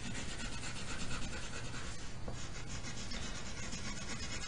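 Watercolor crayon scribbling back and forth on thin computer paper, a steady scratchy rubbing made of rapid, even strokes.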